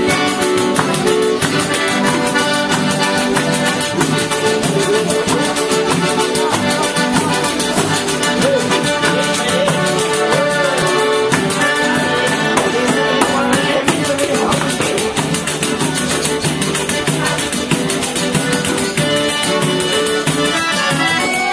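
Live piano accordion playing a tune, accompanied by acoustic guitar and pandeiros (Brazilian tambourines) whose jingles keep a steady rhythm throughout.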